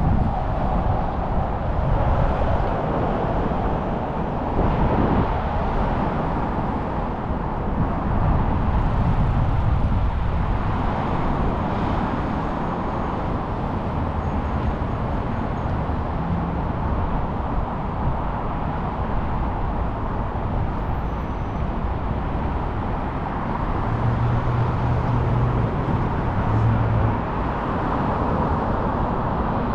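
Steady city street traffic noise, with a low rumble throughout.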